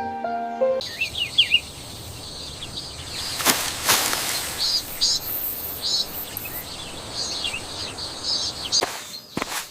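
Birds chirping over a steady outdoor hiss, with two sharp knocks about three and a half seconds in and a few more clicks near the end. Piano music cuts off just under a second in.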